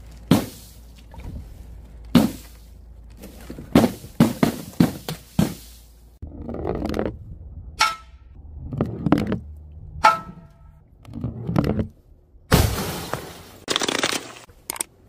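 A series of sharp pops and splashes as water balloons burst on a bed of nails, then crashing and crunching as a CRT television breaks on paving tiles. Near the end comes a long loud smash of glass bottles shattering.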